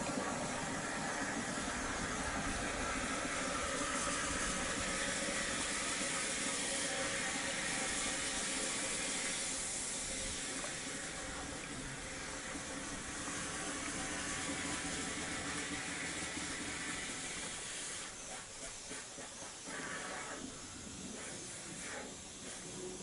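Steady hissing rush of compressed air being blown in under the capsized boat's bow to float it, cutting away about 18 seconds in.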